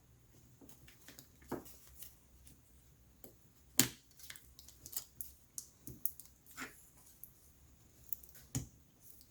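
Scattered faint clicks and light taps of small parts and a tool being handled inside an opened laptop, the sharpest click about four seconds in.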